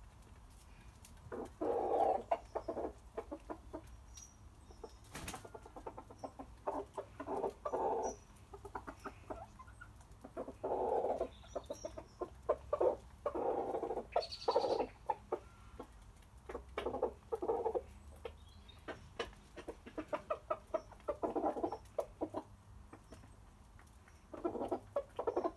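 Bantam chickens clucking in short repeated bursts while feeding, with sharp taps of beaks pecking on concrete between and among the clucks.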